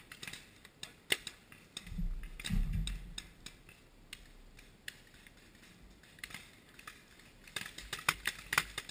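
Paintball markers firing: scattered sharp pops, thickening into rapid strings of shots near the end. A brief low rumble on the microphone comes about two seconds in.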